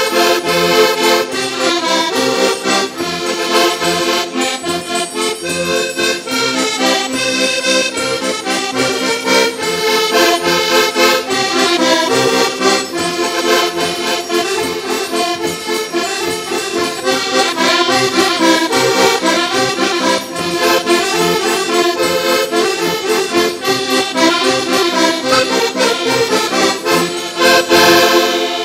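Ensemble of Portuguese concertinas (diatonic button accordions) playing a traditional tune together, many reedy voices in chords over a steady rhythmic pulse.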